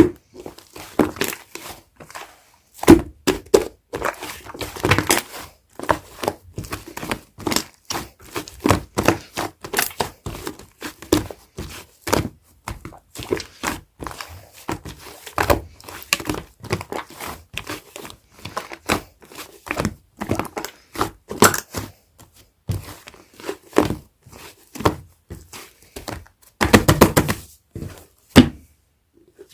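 Clay-mixed slime being squished, folded and pressed by hand, making a continuous run of irregular sticky pops, clicks and crackles.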